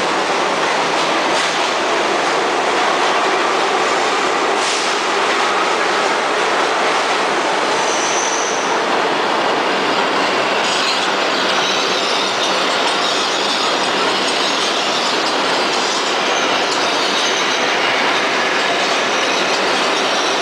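New York City subway trains running through an underground station, with steady noise of steel wheels rolling on the rails. A brief high wheel squeal comes about eight seconds in.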